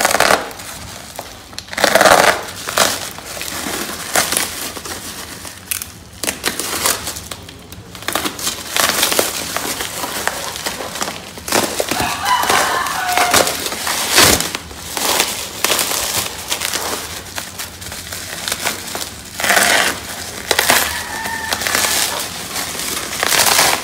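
Bubble wrap and plastic packaging crinkling and crackling in irregular bursts with short pauses, as a package is cut open with a box cutter and unwrapped by hand.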